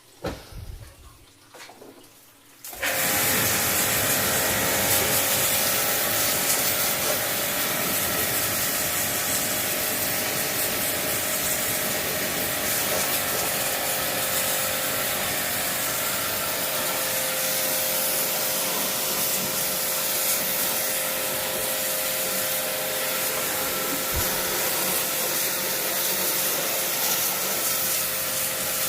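A motor-driven cleaning machine switches on about three seconds in and runs steadily, a constant whine over a loud hiss, after a few light knocks.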